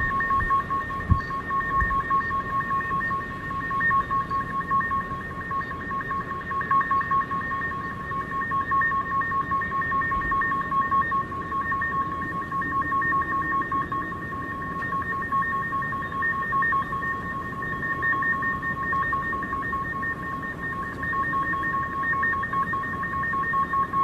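A steady, high two-pitch electronic tone holds without a break over a low rumble; it is the kind of sound circulated as a mysterious sky noise.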